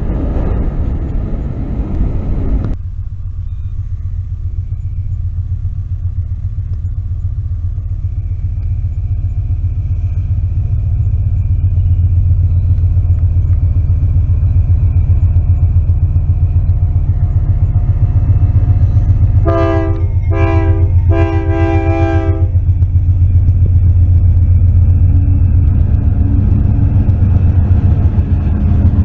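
Loud noise of freight cars rolling past ends abruptly about three seconds in. Then Ferromex diesel freight locomotives approach with a low rumble that swells and holds. Near the end they sound their multi-note air horn three times, two short blasts and a longer one, as they come up close.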